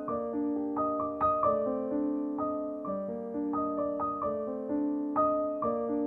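Background piano music: a melody of struck notes ringing over held lower notes.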